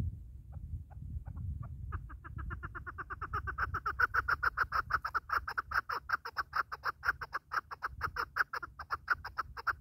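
Chukar partridge calling: a series of short clucking notes that start slow and widely spaced, then speed up and grow louder into a rapid run of several notes a second, and stop near the end.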